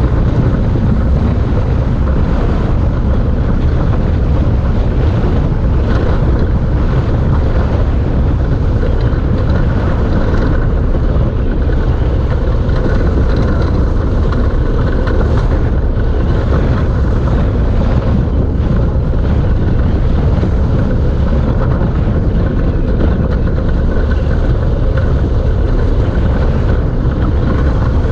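Steady loud rush of wind on the microphone together with rolling tyre noise from an engineless gravity race car coasting downhill on asphalt, heard from a camera mounted on the car.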